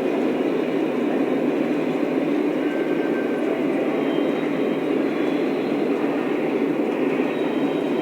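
Lionel O-scale model train running on its track: a steady, even rumble of wheels and motors with no letup.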